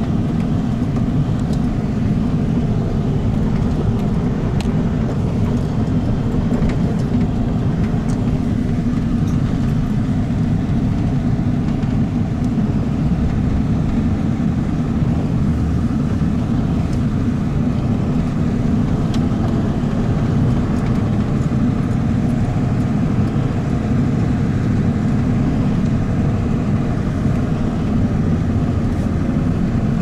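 Four-wheel-drive vehicle driving along a dirt track, heard from inside the cab: the engine and tyres make a steady low rumble.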